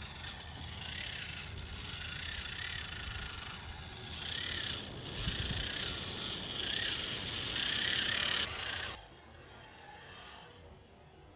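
A 1/24-scale Losi Micro Trail Trekker RC crawler's electric motor and gearbox whining as it crawls through mud. The pitch rises and falls in short throttle blips about once a second, and the sound drops off sharply about nine seconds in.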